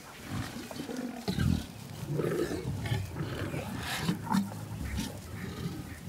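A run of low, rumbling growls and grunts from a male lion clamping an African buffalo cow's muzzle in a suffocating hold, with the strangled buffalo's own grunts mixed in.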